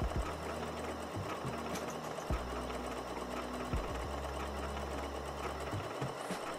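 Janome Memory Craft 6700P computerised sewing machine stitching a decorative leaf pattern through cotton: a steady, rapid needle clatter over the motor, with an occasional louder knock.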